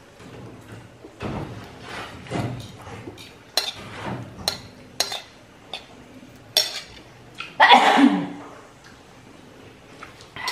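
Metal spoon clinking and scraping against a glass plate as rice and rawon are eaten, a few separate clinks over several seconds. A short vocal sound about eight seconds in is the loudest moment.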